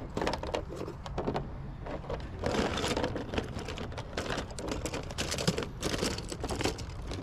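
Small hard plastic action figures clicking and tapping on a plastic folding table as they are picked up and set down one after another, with a rustle of handling through the middle.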